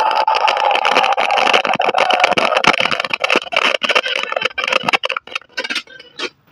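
Audio from an LG CRT TV's speaker, harsh, scratchy and crackling, breaking up and dropping out in short gaps over the last second or so. This is the set's sound fault, which appears only after it has run for half an hour to an hour.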